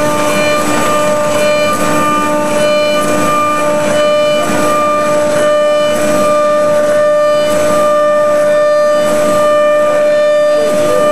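Patriot OrthoRoute CNC router machining, its 5-horsepower spindle whining at a steady pitch. Higher tones switch on and off every second or so as the machine moves the cutter.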